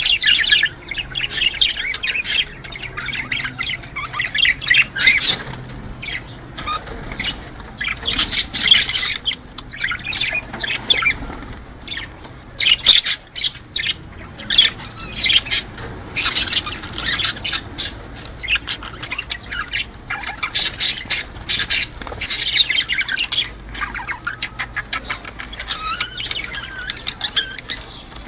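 Small cage birds chirping and squawking in a busy, overlapping flock chorus that comes in bursts with brief lulls, of the kind played to cage birds to stimulate breeding.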